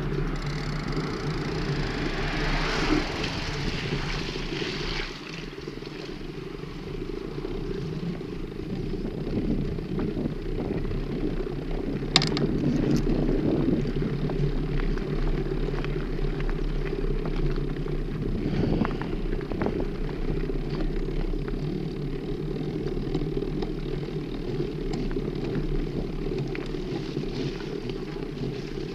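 Steady rumble of a mountain bike being ridden: tyre and wind noise through a handlebar-mounted camera, with one sharp knock about twelve seconds in.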